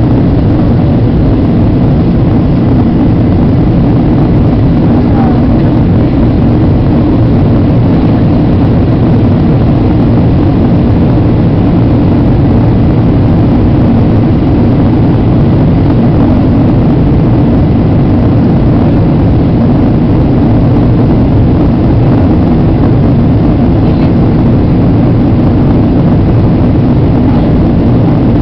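Steady cabin noise inside a Boeing 737-800 airliner in descent: the loud, low rush of airflow and engine noise, with a faint steady hum running through it.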